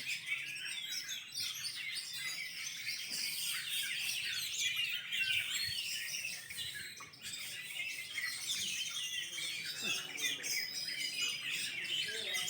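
Many Oriental magpie-robins singing at once in a dense, continuous chorus of overlapping chirps, whistles and warbles.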